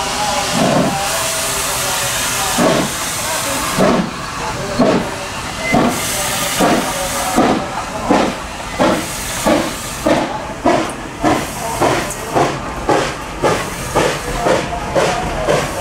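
Small steam locomotive pulling away from a standstill. A steady hiss of steam runs for the first few seconds, then exhaust chuffs that quicken from about one a second to over two a second as it gathers speed.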